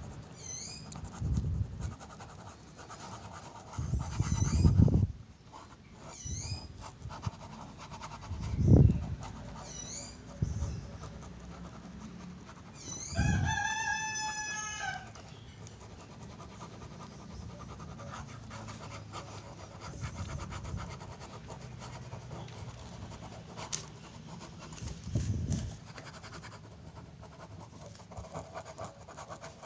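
Ballpoint pen scribbling on notebook paper, with a few low thumps. A rooster crows once in the background midway through, one call about two seconds long, and small birds chirp now and then.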